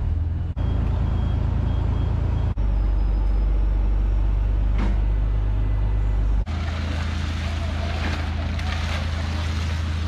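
Steady low engine drone, as of a fishing boat's engine idling alongside the quay. It is broken by abrupt cuts about half a second, two and a half seconds and six and a half seconds in. In the last few seconds a rougher clatter and hiss rides over it.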